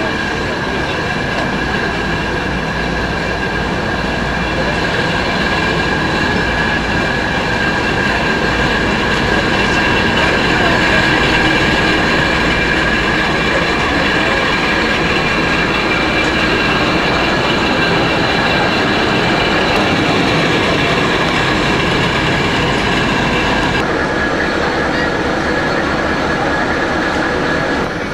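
Engine of a small 1936 Windhoff Kö I diesel shunting locomotive running steadily, with a steady high whine over the engine noise. The whine fades near the end.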